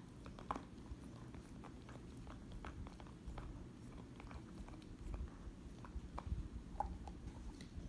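Pit bull chewing and gnawing on something held between its paws, a run of irregular wet clicks and crunches.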